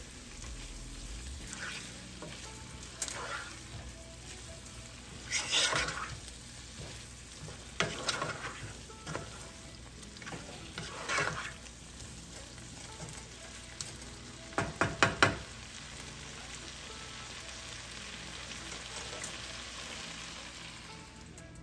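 Pork bites and onions sizzling in a sauce in a nonstick frying pan, stirred and scraped now and then with a wooden spatula. About two-thirds of the way through come four quick knocks of the spatula against the pan, the loudest sounds here.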